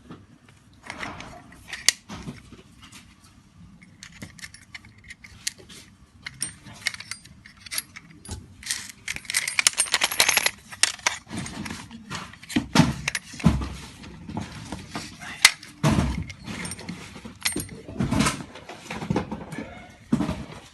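Handling of a small set of metal drill bits in their plastic case: irregular clicks, light metallic clinks and occasional thumps.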